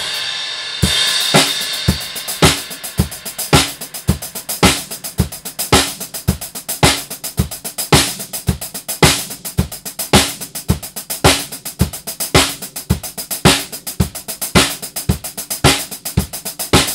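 Drum kit played in a steady groove: quick, bright hi-hat strokes over kick and snare, with loud accents about once a second. It opens on a ringing cymbal crash.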